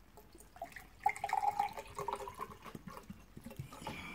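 Water poured from a plastic bottle into a cup, running for about two seconds starting about a second in.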